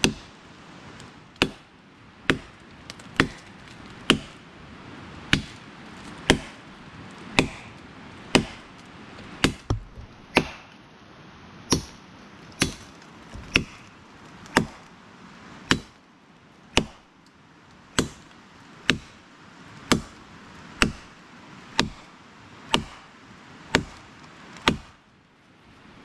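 Firewood being chopped by hand: a steady run of sharp chops about once a second, some two dozen strokes, which stop shortly before the end.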